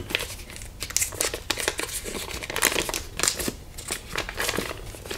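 Paper wrapper being peeled off a stick of butter: irregular crinkling and crackling of the paper throughout, with some tearing.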